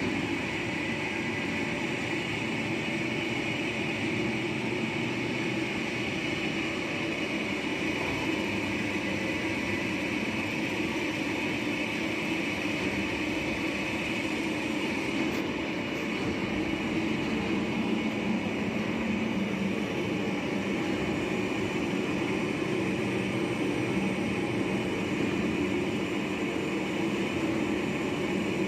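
CNC lathe running and machining metal: a steady mechanical drone with a constant high whine.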